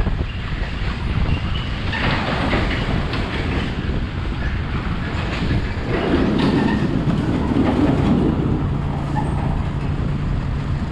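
Motorbike ride noise: wind buffeting the action-camera microphone over the rumble of the bike and road. The noise is rougher around two seconds in and again midway, and a steady low hum joins near the end.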